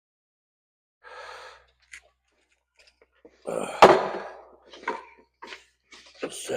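Short handling noises: a brief rustle, a small click, then a sharp knock with rustling around it about four seconds in, followed by a few short scrapes. No saw is running.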